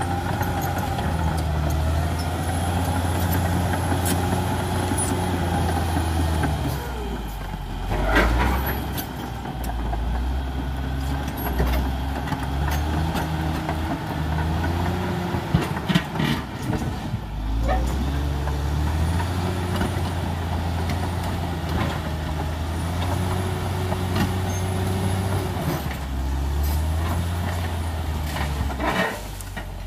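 Caterpillar D6R XL bulldozer's diesel engine running under load, its pitch rising and falling as it works, with sharp clanks and knocks about eight seconds in, around the middle, and near the end.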